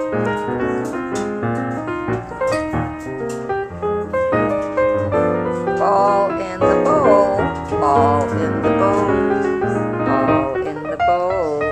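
Piano-led background music.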